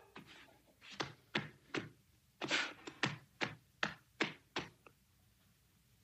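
A seal clapping its flippers together: a run of about ten short, sharp slaps, two or three a second, starting about a second in and stopping about a second before the end.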